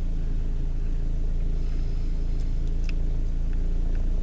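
Car engine running with a steady low drone, with a few faint ticks near the middle.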